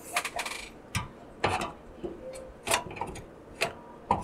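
Radeon RX 5600 XT graphics card being fitted into the PCIe slot of a sheet-steel mining case: about five sharp clicks and knocks, roughly a second apart, as the card's metal bracket and edge tap against the case and the slot.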